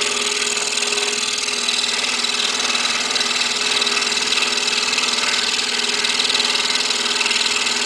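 Excalibur scroll saw running at a steady speed, its blade cutting slowly through hard maple: a constant hum with an even hiss from the cut.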